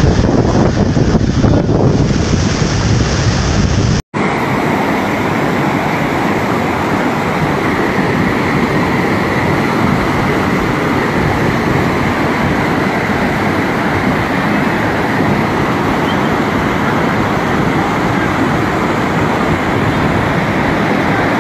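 Muddy floodwater of a flash-flooded wadi rushing in a steady, loud torrent. For the first four seconds wind buffets the microphone; after a brief dropout the rush carries on evenly.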